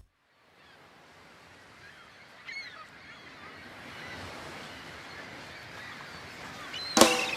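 A steady rushing ambience fades in, with a bird call about two and a half seconds in. Loud music with drums cuts in suddenly near the end.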